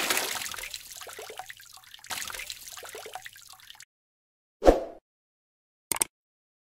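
Splashing and sloshing water around a small plastic toy truck that has just plunged into a shallow stream, dying away, with a second spell of splashing about two seconds in. Near the end come a short thump and a brief click.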